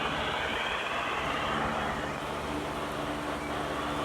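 Weather radio receiver hissing with steady static, with faint low hum tones underneath and no voice on the channel.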